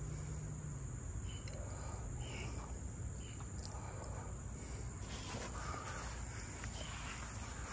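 Insects trilling as one steady high-pitched tone, over a low outdoor rumble, with a few faint clicks.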